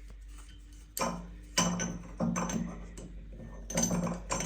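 Metal clinks and knocks of an adjustable wrench being handled and fitted onto the shower valve cartridge, several sharp hits starting about a second in.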